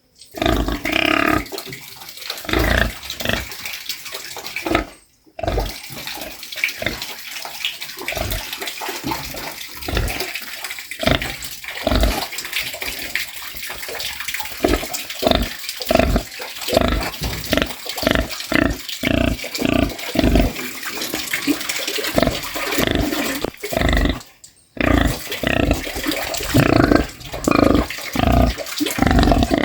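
Domestic pig grunting in a long run of short, rough grunts, several close together at times, with two brief breaks.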